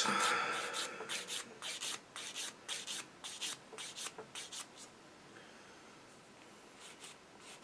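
Small plastic model-kit part rubbed on a hand-held sanding stick to clean up its sprue attachment points: quick short strokes, about three a second, dying away after about four seconds, with a couple more near the end.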